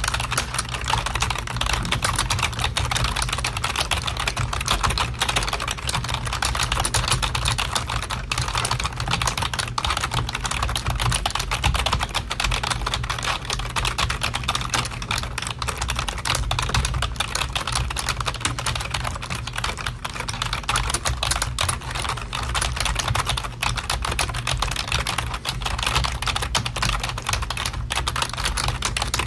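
Frantic, nonstop typing on a computer keyboard: keys clicking many times a second without a break, over a steady low hum.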